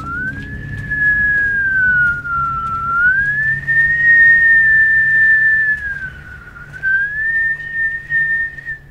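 A man whistling one long, unbroken note that wavers slowly up and down, dipping lower twice and ending high. It is a shaman's whistle, the way a shaman communicates with the ghost of a child who died before learning to speak; it sounds like a bird chirping.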